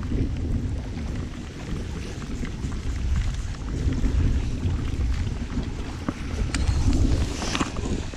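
Wind buffeting the microphone outdoors on open water: a low, uneven rumble with scattered small clicks, and a brief brighter hiss about seven and a half seconds in.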